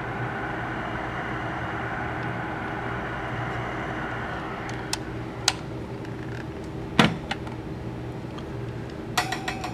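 MHG-1 Master Mite heat gun blowing warm air in a steady rush with a low motor hum, drying a freshly cleaned surface. About halfway through the rush fades, followed by a few clicks, a sharp knock, and a short clatter near the end.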